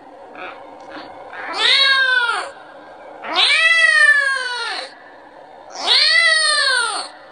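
A kitten meowing three times, each meow long and rising then falling in pitch: a kitten calling for its mother, asking for milk.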